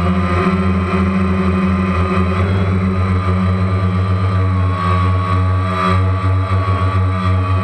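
Camera drone's electric motors and propellers whirring in flight, a steady buzzing whine picked up by the onboard camera, its pitch shifting slightly a few times as the drone manoeuvres.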